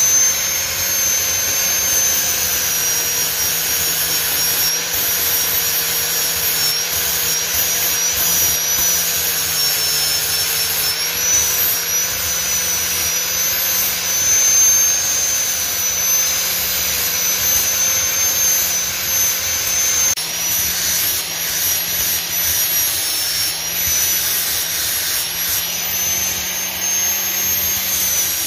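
Electric angle grinder running steadily with a high whine, its disc grinding down the steel head of an old hammer being restored; the grinding changes slightly about twenty seconds in.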